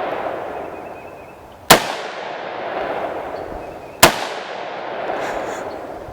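AR-15 rifle fired twice, about two and a half seconds apart. Each sharp shot is followed by a long rolling echo.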